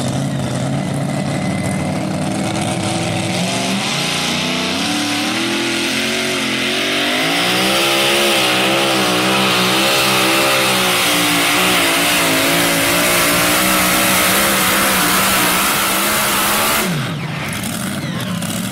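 Supercharged engine of a pulling tractor running at full throttle under load: the pitch climbs in steps for the first several seconds, then holds high and wavers up and down while it is loudest. About seventeen seconds in the pitch drops and it gets quieter.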